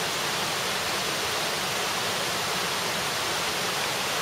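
Steady rushing of flowing water, a stream or waterfall, an even hiss that does not change.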